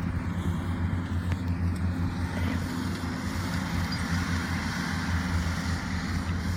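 An engine running steadily at a constant speed: a low hum that holds the same pitch throughout.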